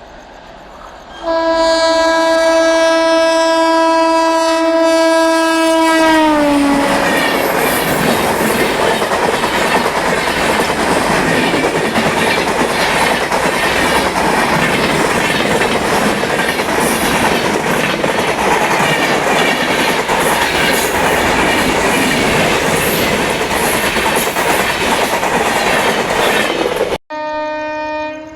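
Indian Railways locomotive horn sounding about a second in, held steady for about five seconds, then dropping in pitch as the locomotive passes. The train then rushes by with its wheels clattering over the rail joints, until the sound cuts off abruptly near the end and another horn starts.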